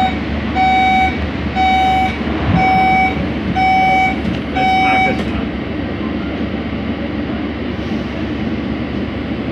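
KL Monorail door-closing warning beeps at a station stop: six even mid-pitched beeps about a second apart, stopping about five seconds in. A steady hum from the standing train runs underneath.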